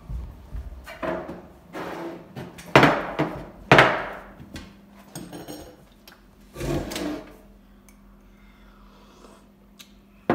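Knocks, bangs and scrapes of metal-framed chairs and a table being bumped and moved. The two loudest bangs come about three and four seconds in, another about seven seconds in, then it goes quieter.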